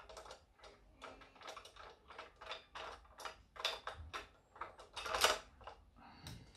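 Irregular small clicks, taps and scrapes from handling a diecast model car, with its screws and a small screwdriver worked at its underside. One louder knock comes about five seconds in.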